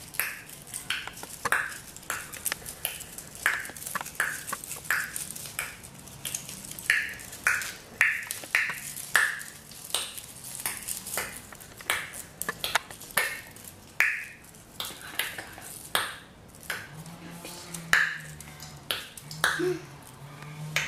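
Paper crackling and crinkling as a fringed strip of crepe-like red paper is wound and pressed by hand around a stick: short, irregular crackles, about two a second.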